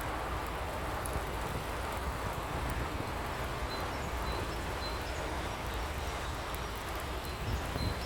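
Pouring rain, a steady even hiss with a low rumble underneath.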